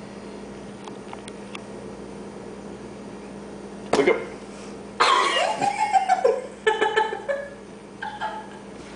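A person's voice, not in clear words: a sharp cough-like burst about four seconds in, then a couple of seconds of coughing or laughing sounds, over a steady low hum.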